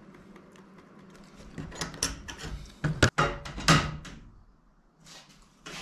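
A cluster of knocks and scrapes from things being handled on a workbench: aluminium spar parts, a level and tools being moved about, the loudest sharp knocks coming about three seconds in, then a few fainter scuffs.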